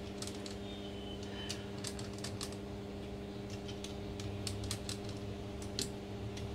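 Scattered, irregular light clicks and ticks of small parts being handled as a laptop cooling fan's cover is opened, over a steady low hum.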